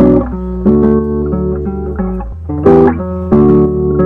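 Background music led by plucked guitar, with notes and chords changing every half second or so over a sustained bass line.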